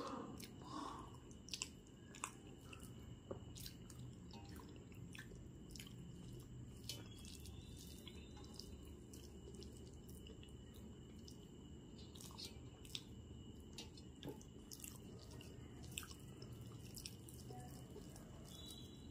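Soft chewing and wet mouth smacks of a person eating basanti pulao by hand, heard as scattered small clicks, over a faint steady high-pitched whine.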